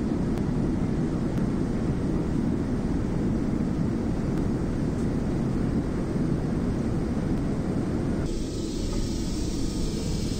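Steady low rumble of a jet airliner's cabin noise in flight. About eight seconds in it switches abruptly to a thinner, hissier steady noise.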